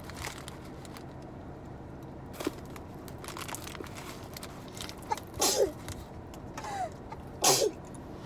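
Shii (chinquapin) nuts being cracked open and chewed: small scattered crunches, with two louder sharp cracks in the second half, over a steady low hum.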